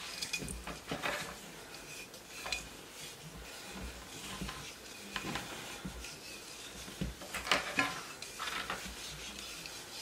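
Jute twine rustling and rubbing as it is pulled tight and wrapped around a terracotta clay pot, with scattered light knocks and scrapes as the pot and wooden spoon are turned in the hands.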